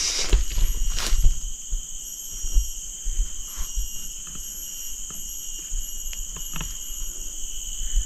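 Steady insect chorus in the forest, several high whining tones that hold without a break, with scattered footsteps and rustling as someone pushes through fern undergrowth.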